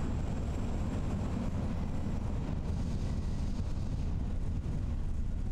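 Steady low rumble of a narrow-gauge train running along the line.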